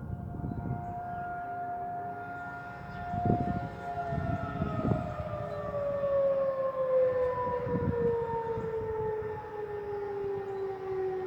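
Federal Signal 2001-SRNB rotating outdoor warning siren sounding a steady tone, then winding down about four seconds in, its pitch falling slowly as it keeps turning. A few low rumbles sound underneath.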